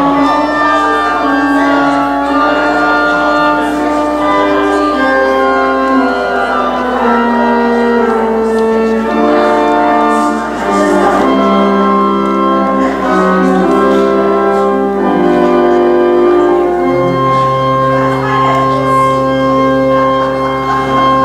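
Church organ playing a slow postlude: sustained chords of held notes changing every second or two, with a low bass note coming in about two-thirds of the way through.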